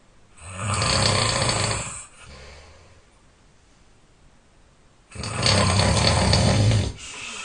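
A sleeping person snoring loudly: two long, rumbling snores about four and a half seconds apart, each followed by a softer tail.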